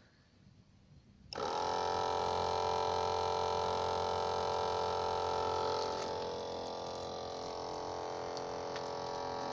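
Electric pump of a Maruyama Kiri Taisho battery-powered knapsack sprayer switching on about a second in and running with a steady hum, dropping a little in level about six seconds in as it sprays water through the lance.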